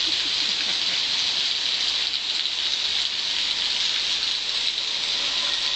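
Heavy downpour of rain falling steadily onto flooded paving, a dense, even hiss.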